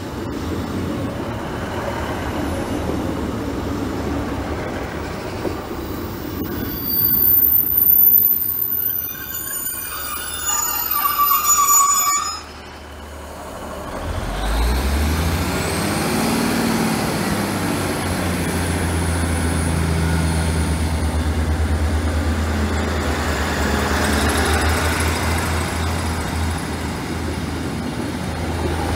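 ScotRail Class 156 Sprinter diesel multiple unit running into the platform, its brakes squealing as it slows. After a break, a Class 156 pulls away, its diesel engines rising into a steady low drone with a climbing whine.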